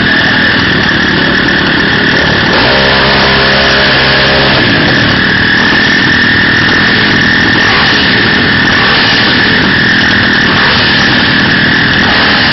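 Off-road dirt bike engines running. One bike passes close by about three seconds in, its engine note dropping in pitch as it goes.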